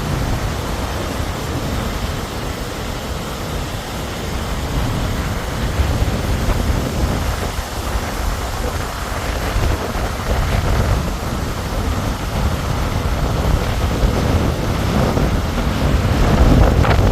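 Steady outdoor rushing noise with a heavy low rumble. It grows a little louder toward the end and then cuts off suddenly.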